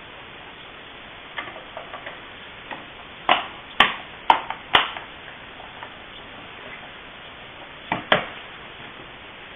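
Sharp knocks and clicks of hand work on parts: a few light taps, then four sharp clicks close together about three to five seconds in, and two more near the end.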